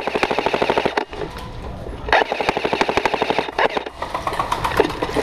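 Airsoft gun firing on full auto: long bursts of rapid, evenly spaced shots, with a short lull about a second in.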